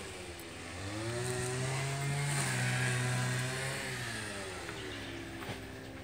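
A tractor's diesel engine running nearby. It revs up about a second in, holds the higher speed, and drops back to a lower speed near the end.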